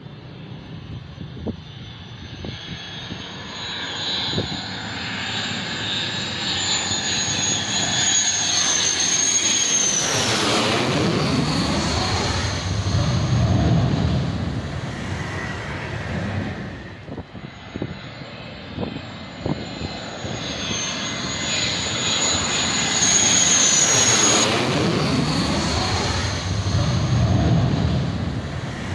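Military jet aircraft flying low overhead on final approach, twice: a high turbine whine builds, then sweeps down in pitch as each jet passes, with a deep engine rumble swelling after it.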